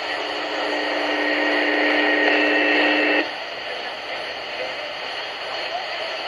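Broadcast radio audio during an Emergency Alert System test: a steady buzzing tone for about three seconds that cuts off suddenly, leaving only radio static hiss.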